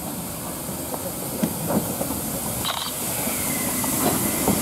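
S&DJR 7F 2-8-0 steam locomotive moving slowly past, with steam hissing and scattered knocks from its running gear. It grows louder as it draws near, the hiss strengthening from about halfway through.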